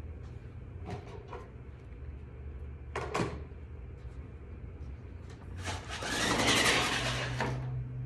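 Handling noise from the phone filming on a desk as it is moved and adjusted: a few light knocks, then a louder scraping rub lasting about a second and a half, over a low steady room hum.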